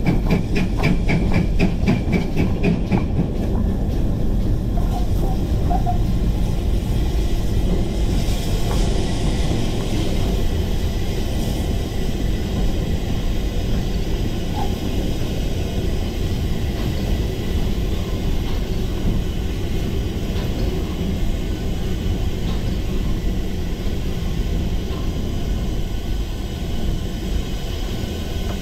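GWR Grange-class 4-6-0 steam locomotive No. 6880 Betton Grange heard from the footplate. Regular exhaust beats at about four a second fade out about three seconds in, leaving a steady rumble of the engine running along the rails.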